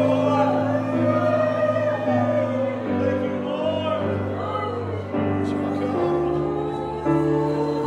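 A worship congregation singing and vocalising freely together, many voices rising and falling in long glides, over sustained chords that change about once a second.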